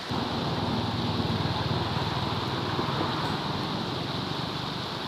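Steady rush of flowing river water, with a low rumble that comes in suddenly at the start and slowly fades.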